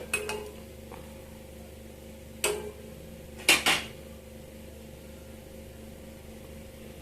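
Metal utensil clinking against a cooking pot: a sharp clank just after the start, another about two and a half seconds in, and two quick clanks together a second later, each with a short ring.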